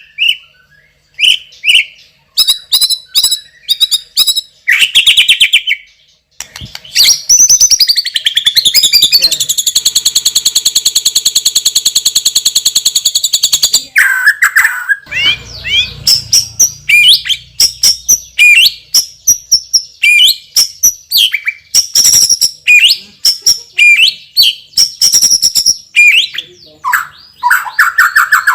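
White-rumped shama (murai batu) singing loudly: a rapid run of varied whistles, chirps and mimicked phrases. About nine seconds in, a fast buzzing rattle trill starts and holds for about four seconds before the varied phrases resume.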